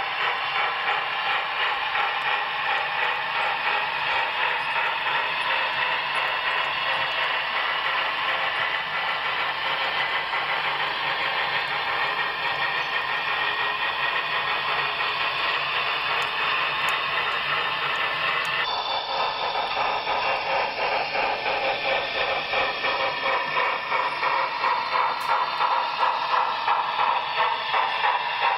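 HO scale model train running on layout track, a steady rattling hiss of wheels and running gear. At a cut about two-thirds through, the sound changes and then pulses rhythmically near the end as a model Union Pacific Big Boy steam locomotive passes.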